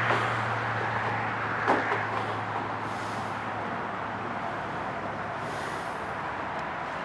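Steady wash of highway traffic noise with a low engine drone that slowly fades away, and a single sharp click about two seconds in.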